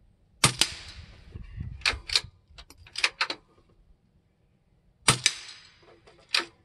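Savage Mark II FV-SR bolt-action .22 rifle firing subsonic rounds, twice: each shot is a sharp, quiet snap followed about a sixth of a second later by the bullet striking a steel target. Smaller clicks between the shots are the bolt being worked.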